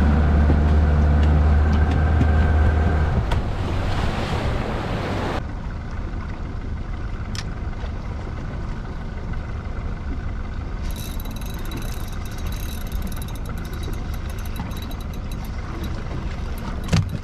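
A fishing boat's engine running, fading out after about three seconds and giving way to steady wind and water noise. A fast, fine ticking comes in over the last few seconds, with one knock near the end.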